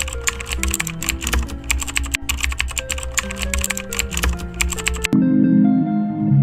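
Fast computer-keyboard typing, a dense run of key clicks, over background music; the typing stops abruptly about five seconds in, leaving the music.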